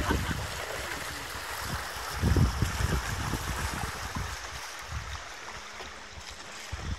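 River water rushing and splashing past a riverboat's hull, with a louder surge of rumble about two seconds in.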